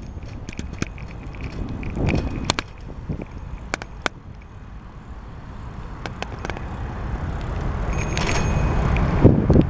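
Bicycle riding, with wind and road rumble on the microphone and scattered sharp clicks and rattles from the bike. The rush of noise grows louder in the second half, and a brief high-pitched squeal comes about eight seconds in.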